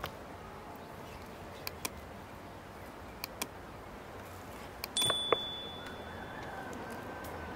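Scattered light clicks and knocks, then about five seconds in a metallic clink that rings on clearly for about a second, like metal utensils or cookware being handled.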